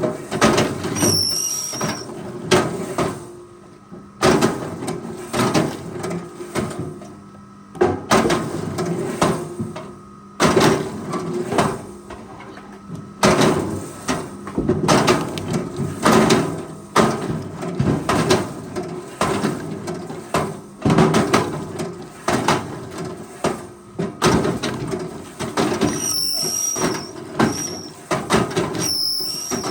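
Forestry machinery at work: an engine running steadily under a long string of irregular heavy clunks and knocks, with a few brief high squeaks about a second in and again near the end.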